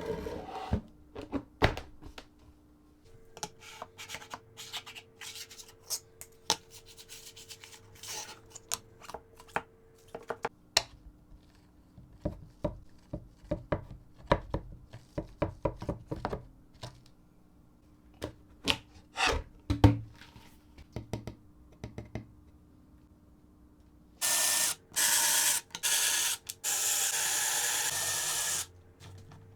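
Hand work on wooden parts: scattered taps, knocks and rubbing. Near the end come four bursts of a loud, even rushing noise, the last about two and a half seconds long.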